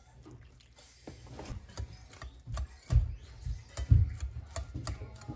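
Wire balloon whisk mashing boiled potatoes with milk in a pot: irregular clicks and scrapes of the wires against the pot, with dull thumps, loudest about three and four seconds in.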